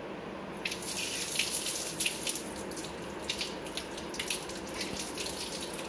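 Tap water running and splashing onto a hand and a silver anklet held under it in a sink, rinsing off the scouring paste. The water comes on about half a second in and keeps splashing unevenly.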